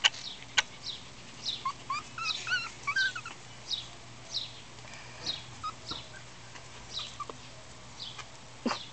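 Six-week-old miniature schnauzer puppies whimpering and squeaking, with wavering squeaks about two seconds in and short high chirps repeating about once or twice a second throughout. A couple of sharp clicks are heard, one near the start and one near the end.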